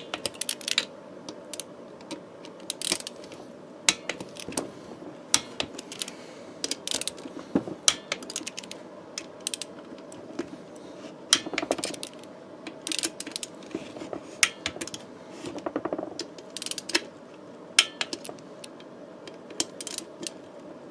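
Torque wrench ratcheting on the AM6 engine's crankcase screws as they are tightened to 12 Nm in a crisscross order: many irregular sharp metallic clicks over a faint steady hum.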